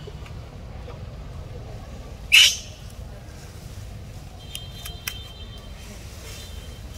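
A single short screech from a macaque about two seconds in, during a scuffle in which an adult carrying a baby pushes off a young monkey.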